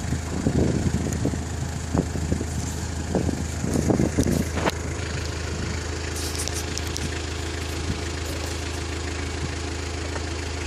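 A horse crunching celery stalks, in a few bursts of crisp chewing over the first half. A steady low engine-like hum runs underneath throughout.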